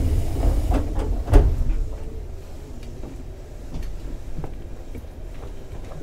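Sliding doors of a Keisei 3600 series commuter train closing, heard from inside the car. A hiss fades out in the first second, and the doors shut with a loud thud about a second and a half in. After that there is only a quieter low rumble with a few faint ticks.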